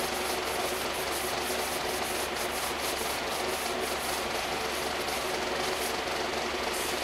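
Wood lathe running with a steady hum while a paper towel is rubbed against the inside of the spinning hackberry workpiece.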